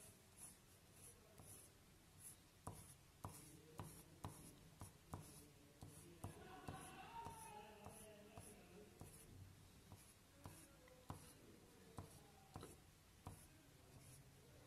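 Pencil drawing on paper: faint scratching and tapping as a Staedtler pencil makes many short wavy strokes, several a second.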